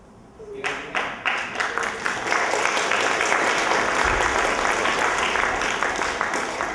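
Audience applauding: scattered claps begin about half a second in and build quickly into full, steady applause that starts to thin out near the end.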